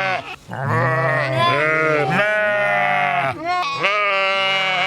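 Sheep bleating: two long calls, one after the other with a short break about three and a half seconds in.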